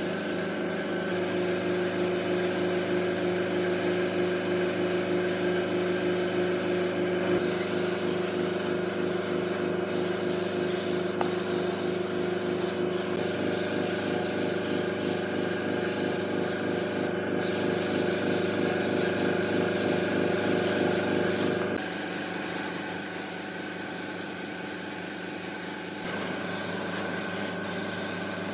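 Electric power sander working a wooden surface: a steady motor hum with a fast rubbing pulse. It eases off and goes quieter about three-quarters of the way through, then picks up again near the end.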